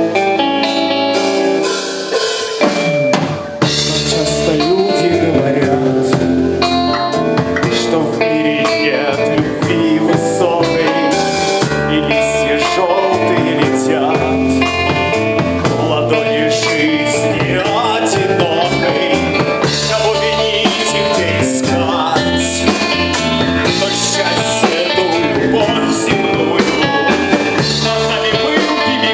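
Band music: a drum kit keeping a steady beat under bass and guitars. The fuller low end of the band comes in a few seconds in.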